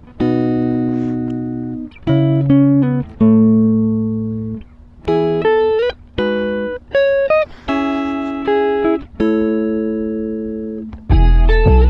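Background music: plucked guitar notes and chords, each struck and left to ring and fade. A deeper, fuller bass layer comes in near the end.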